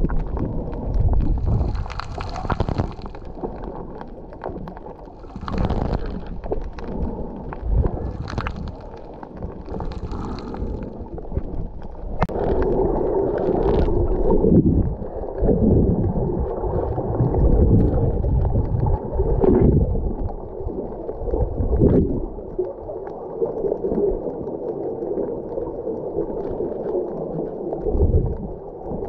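Underwater sound picked up by a camera held below the surface: muffled gurgling and swishing water movement with uneven low rumbles. About halfway through a steady low hum joins in.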